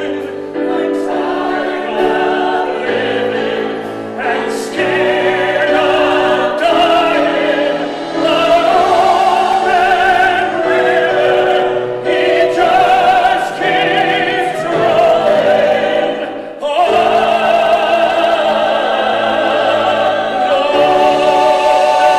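A man singing a show tune in full, operatic voice with a wide vibrato, holding long notes, accompanied by piano and a small band.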